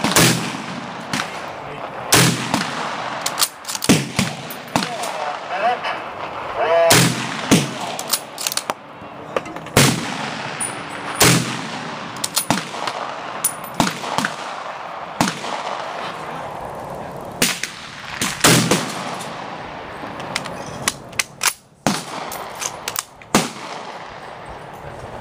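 Rifle fire on an outdoor shooting range: a dozen or so single shots at irregular intervals, a few loud and close, the others fainter and more distant.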